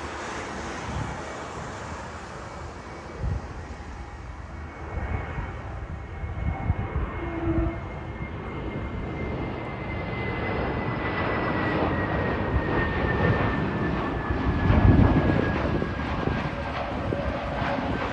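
Airbus A320neo jet engines during landing, a steady roar that grows louder about halfway through, with a thin high fan whine that slowly falls in pitch as the plane passes. Low rumbles of wind buffet the microphone.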